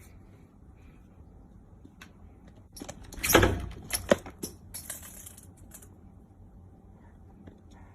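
A window screen rattling in a sudden clatter about three seconds in, followed by a couple of seconds of scratchy clicks and rustles, as a cat leaps and claws at the screen.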